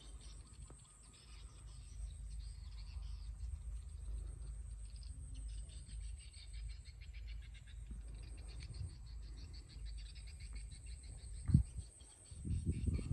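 Outdoor countryside ambience: a steady high-pitched insect drone with birds chirping, over a low rumble. A short thump comes near the end, followed by a brief louder rustling burst.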